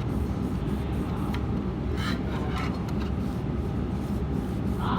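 Steady low rumbling hum of running machinery, with a few faint clicks about two seconds in.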